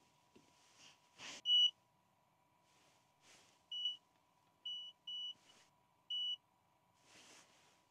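Electric heated blanket's control panel beeping five short times as its buttons are pressed to switch it on and set the timer, the first beep the loudest. Soft handling rustles come between the beeps.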